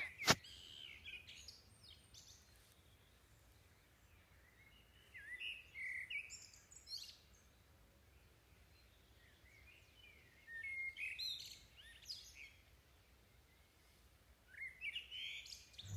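Faint bird chirping in three short spells, about five, eleven and fifteen seconds in, with near silence between.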